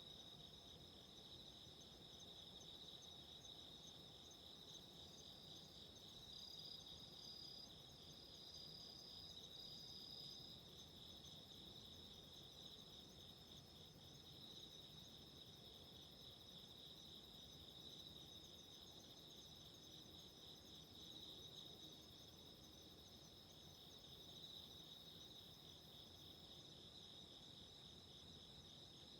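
Faint, steady chorus of autumn crickets trilling at two high pitches. A higher voice among them calls in short repeated trills for a few seconds near the start.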